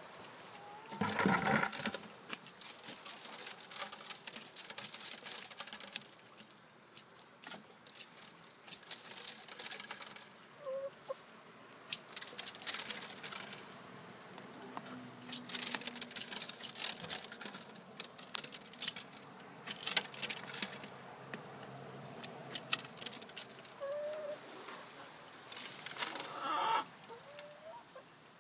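Chickens clucking now and then in short calls, with many scattered clicks and light knocks throughout.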